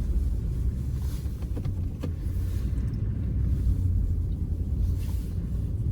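Pickup truck driving through snow, heard from inside the closed cab: a steady low rumble of engine and road noise, with a few faint ticks.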